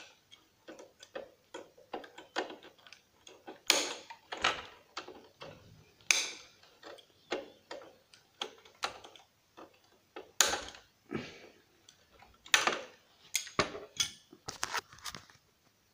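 Cutters snipping through a turntable's wires and metal tabs: an irregular run of clicks and snaps, with a few louder cracks among them.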